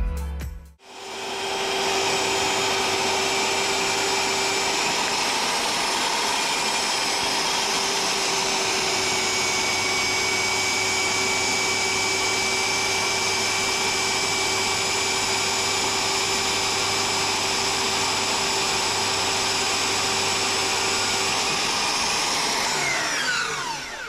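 Large Mafell timber-construction circular saw starting up, running steadily at full speed while cutting an oak beam, then winding down near the end with a falling whine.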